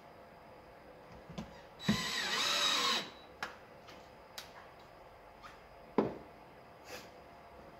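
DeWalt cordless drill-driver driving a self-tapping screw into a bracket for about a second, its motor whine rising in pitch. Light clicks follow, and a sharp knock about six seconds in as the drill is put down on the wooden board.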